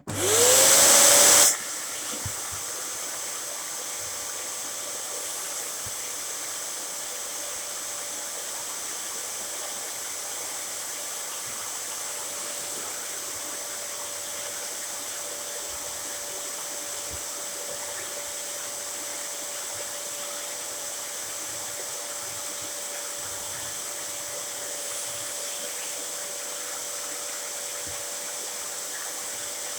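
Dyson DC07 upright vacuum cleaner switched on: a loud rush for the first second and a half as the motor's whine climbs in pitch, then the cleaner runs steadily with an even hiss of airflow and a constant motor whine.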